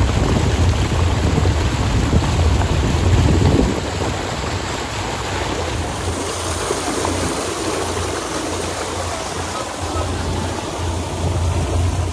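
Tour boat under way: a steady low engine drone under a rush of water and wind noise, louder for the first four seconds.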